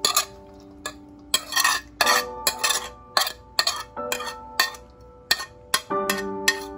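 A spoon knocking and scraping against a stainless steel mixing bowl as chopped vegetables are tipped onto ground pork, in about a dozen short clicks and scrapes.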